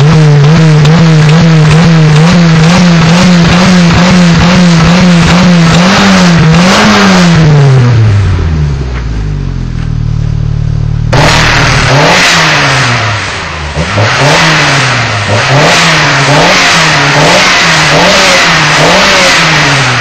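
VW Scirocco's 1.8-litre JH four-cylinder revved through a Remus sport exhaust with a Group A pipe, heard at the tailpipe. It is held at high, steady revs for about six seconds, drops back to idle, then is blipped over and over, rising and falling about once a second, before settling again near the end.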